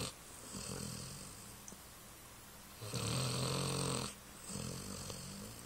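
Slow, regular snoring. One long, loud snore comes about three seconds in, lasting about a second, with softer snoring breaths before and after it.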